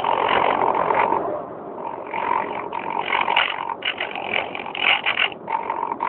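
Electric motor and propeller of an EasyStar RC plane in flight, mixed with wind rushing over the phone's microphone carried on board. The sound swells and drops in uneven surges every second or so.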